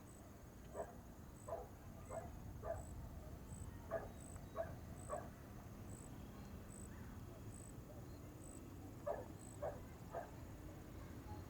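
A dog barking in three short runs of single barks, about two barks a second, with a pause of a few seconds between runs, over a low outdoor background rumble.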